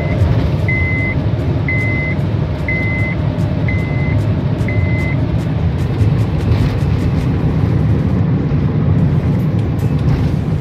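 Inside the cabin of a 2010 Honda Odyssey minivan on the move and slowing down: a steady low road and engine rumble. Six short high electronic beeps sound about a second apart over the first five seconds.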